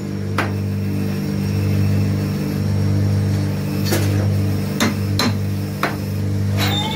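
Cylinder boring machine's electric motor running with a steady hum that swells and fades slightly at a slow, even pace while a motorcycle or scooter cylinder is bored. Sharp metallic clinks from tools and parts being handled come several times, mostly in the second half.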